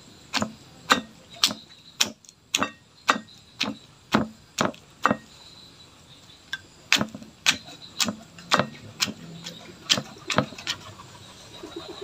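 Stone pestle pounding a fried pigeon into chili sambal in a stone mortar: sharp thuds about two a second, in two runs of strikes with a pause of about two seconds in the middle.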